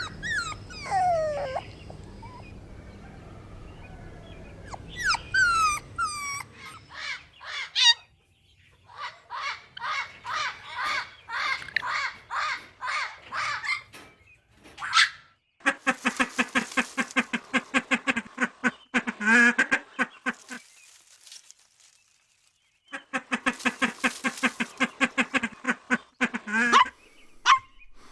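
Dogs and puppies vocalizing: high, falling whines and yelps at first, then long runs of rapid, evenly spaced yapping calls, and a few single barks near the end.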